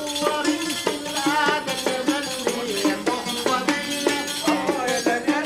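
Oud and riq playing Arabic music: a run of short plucked oud notes over the riq's steady jingling beat.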